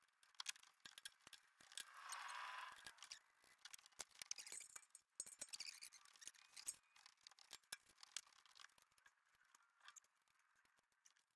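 Faint, irregular metallic clicks and clinks of tools and steel parts being handled, as a spanner works the nut on a milling machine's horizontal arbor and parts come off it, with a longer scrape about two seconds in.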